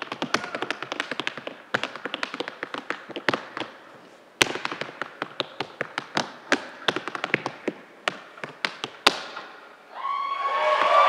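Tap shoes striking a wooden stage floor in an unaccompanied tap solo: quick runs of taps, with a single loud stamp about four seconds in and a final loud stamp about nine seconds in that ends the routine. About a second later the audience bursts into applause and cheers.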